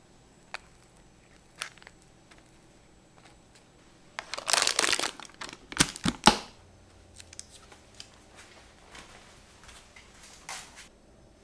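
Baking paper crinkling as a snap-lock lid is pressed onto a glass food container. This is followed about a second later by three sharp snaps as the lid's locking clips close. There is one more brief crinkle near the end.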